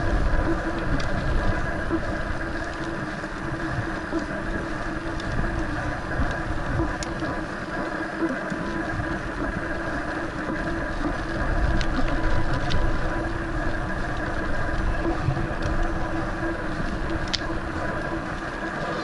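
Steady rush of wind on the camera's microphone and road-bike tyres on wet tarmac while coasting downhill, with a few light clicks now and then.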